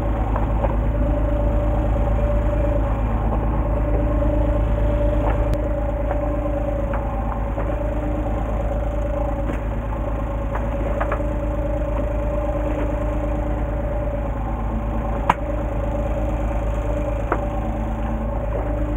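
Fishing boat's engine idling with a steady hum. A single sharp click about fifteen seconds in.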